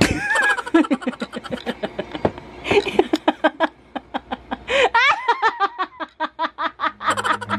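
Hearty laughter in quick, repeated bursts. Background music comes in near the end.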